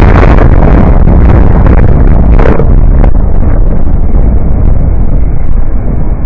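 Thunder from a very close lightning strike, heard through a car dash cam's microphone: a deafening crackling roll that saturates the recording, with sharper cracks about two and a half and three seconds in. Heavy rain drums on the car underneath.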